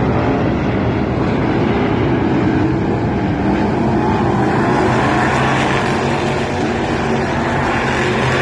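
Several street stock race car engines running hard together at racing speed, a loud, steady blend of overlapping engine notes that drift slightly in pitch.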